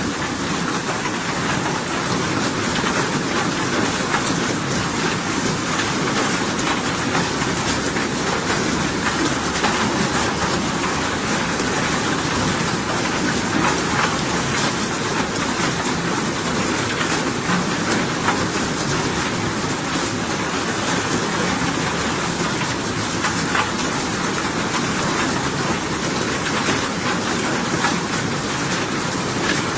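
Steady rain falling, an even hiss with scattered faint ticks of drops, unchanging throughout.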